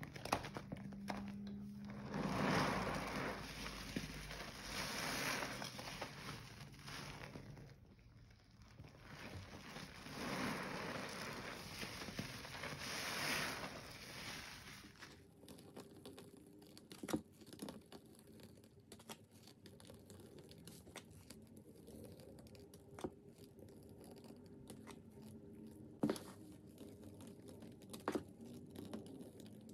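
Gloved hands squishing and squeezing a sponge through thick, foamy cleaning-powder slurry (Comet with bleach and Pine-Sol), wet squelching in two long swells. It then goes quieter, with a few sharp knocks as things are handled in the basin.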